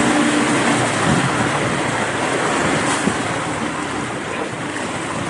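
A tour boat's motor running with rushing water noise, a steady noise that slowly eases off a little.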